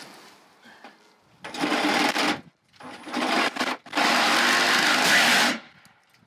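Milwaukee cordless drill running in three bursts, the last and longest about a second and a half.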